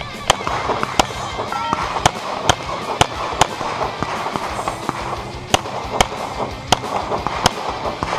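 About a dozen pistol shots fired in quick, uneven strings, most about half a second apart with a short pause in the middle, over background music.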